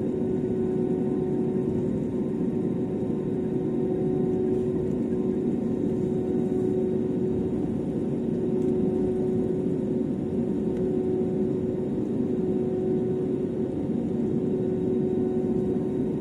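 A steady mechanical hum with one constant pitched tone over a low rumble, unchanging throughout.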